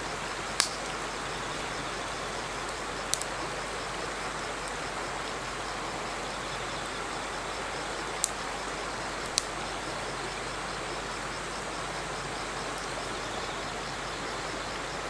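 Wood fire burning in a small folding fire stand, giving four sharp pops over a steady rush of flowing river water. Insects trill faintly in a fast pulse high above.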